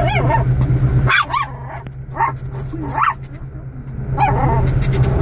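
Small black-and-tan dog barking and yapping repeatedly at the car's windscreen wipers, short sharp calls about once a second. A steady low hum from the car runs underneath.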